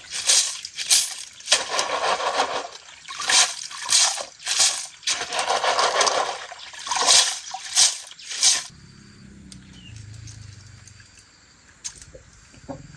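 Water splashing and sloshing in a plastic basin in uneven bursts as a plastic basket of snails is dunked, swished and lifted to rinse them. About eight and a half seconds in, the splashing stops and only faint low background noise is left.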